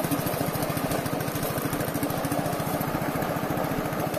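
Small single-cylinder petrol engine running steadily with a rapid, even putter.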